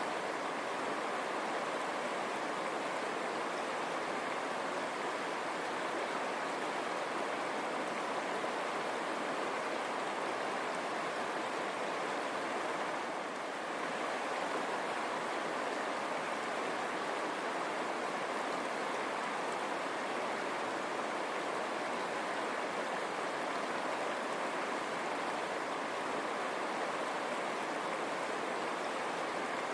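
River water running over stones: a steady, unbroken rush.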